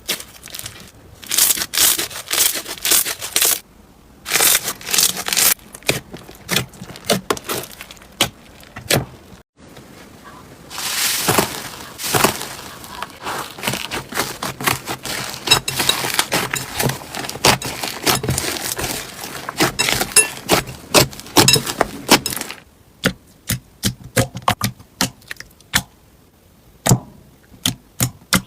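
Slime being squeezed and worked by hand, giving dense crackling and popping clicks. The sound breaks off briefly about nine seconds in, and the clicks thin out to scattered pops near the end.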